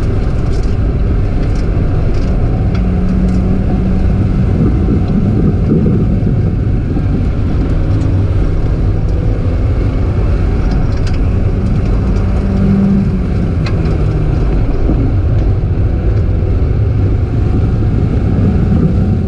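A Mazda Miata's four-cylinder engine running hard at speed, heard from inside the car, its pitch rising and falling with throttle and gear changes over a steady rush of road and wind noise.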